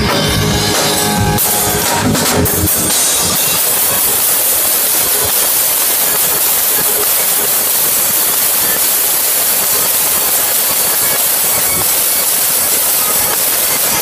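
Live rock band playing loud, with electric bass guitar, drums and guitar. After the first two or three seconds the sound turns into a dense, even wash of cymbals and distorted noise that covers the notes.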